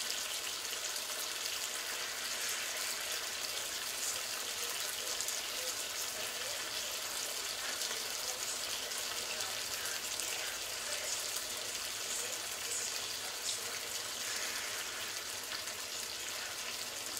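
Chopped tomatoes and vegetables sizzling steadily in a frying pan on the hob, a constant fine crackling hiss.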